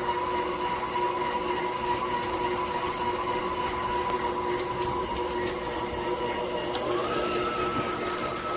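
COOKLEE 660 W stand mixer's electric motor running steadily with a steady whine while the dough hook kneads. About seven seconds in there is a click, and the whine then rises in pitch and holds higher as the mixer speeds up.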